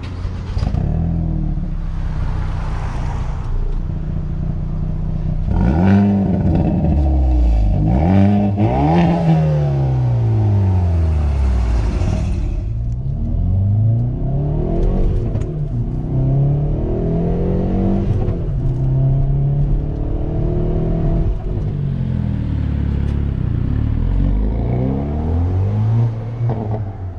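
Car engine revving and accelerating, its pitch climbing and dropping back again and again through the whole stretch.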